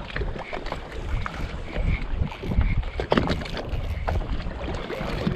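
Wind buffeting the microphone over choppy water lapping against a boat's hull, with scattered knocks and clicks.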